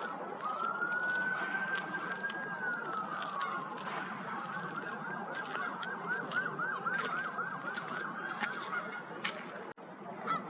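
Distant emergency-vehicle siren: one long rising and falling wail, then a fast, even yelp warble that stops near the end.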